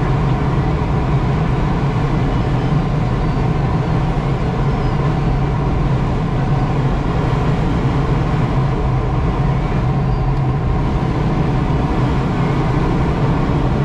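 Steady noise inside a sailplane cockpit, even and unbroken, with a low hum underneath.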